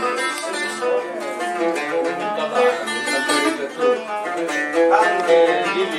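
Plucked string instruments, lute-like, playing an instrumental melody of quick successive notes.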